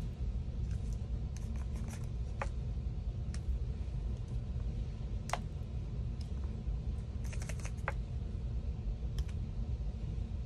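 Scattered light clicks and taps, a few each second at irregular intervals, as a paintbrush loaded with watery red acrylic paint is flicked to splatter it over a silicone mold and plastic sheeting. A steady low hum runs underneath.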